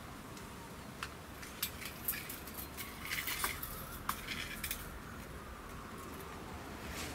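Scattered light clicks and rustles of someone working over a wooden board and stepping across grass and fallen leaves, clustered from about a second in until nearly five seconds in, over faint steady outdoor hiss.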